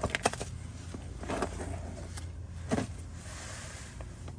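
Brake caliper guide pins and hand tools being handled, giving a few short clicks and knocks: a cluster right at the start, one more about a second and a half in and another near the three-second mark. A steady low hum runs underneath.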